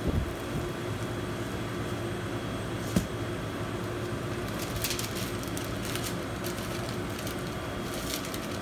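Steady background hum with a single click about three seconds in; from about five seconds in, a paper waffle wrapper crinkling as a folded waffle is slipped into it.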